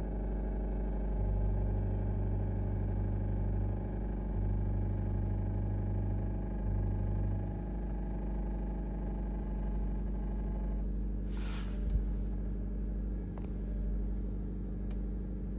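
2024 Honda CR-V Hybrid's 2.0-litre four-cylinder engine running steadily on a cold start, with a rattle that new injectors and spark plugs have not cured. A short hiss comes about eleven seconds in and a single thump about a second later.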